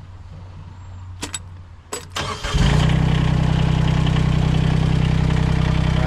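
A few clicks, then the Derette V1000's engine turns over and catches about two and a half seconds in, settling into a steady run. It is the first start after the hydraulic coupler between engine and pumps was replaced.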